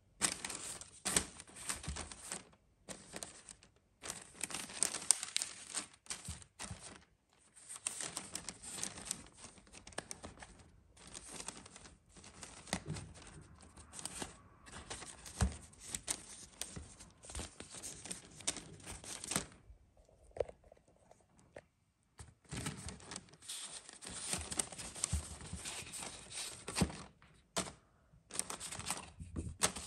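Paper and tissue paper rustling and crinkling in irregular handfuls, with short pauses, as envelopes and cards are handled.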